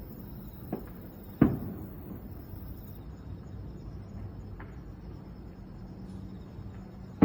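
Fireworks shells bursting: a small crack, then a loud boom with a rolling echo about a second and a half in, a few faint pops, and another loud boom at the very end. Insects trill steadily in the background.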